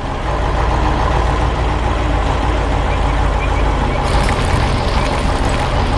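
Heavy diesel vehicle engine running steadily with a deep rumble. About four seconds in, a hiss joins in over it.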